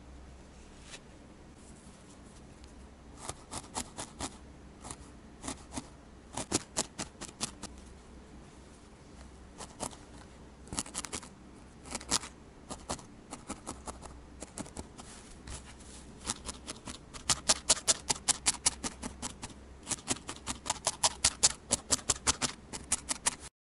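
Barbed felting needle stabbing repeatedly into a wool cat face on a burlap-covered pad, each stab a short scratchy click. The stabs come in irregular clusters, becoming faster and louder in the last third at about four a second, then cutting off just before the end.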